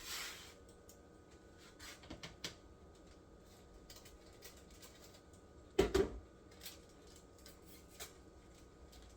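Scissors snipping open cheese-powder packets, with light clicks and packet rustling and one louder knock about six seconds in.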